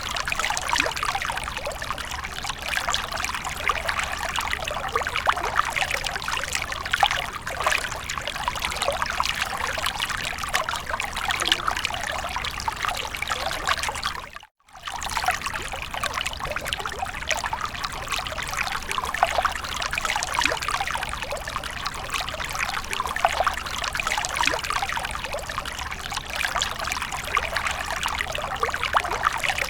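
Water from a fountain trickling and splashing steadily. It cuts out to silence for a moment about halfway through, then resumes.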